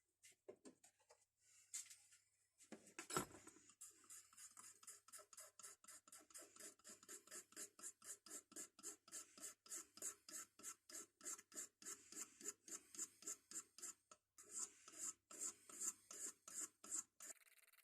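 Rhythmic back-and-forth scraping strokes, about three to four a second, with a single knock about three seconds in and a short break near the end.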